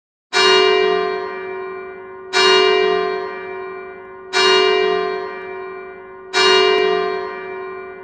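A single church bell tolling, struck four times about two seconds apart at the same pitch. Each stroke rings out and fades before the next.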